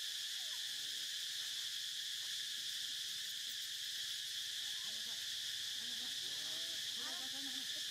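Steady, high-pitched chorus of insects chirring in the surrounding forest, with faint rising and falling pitched calls or voices joining in the last few seconds.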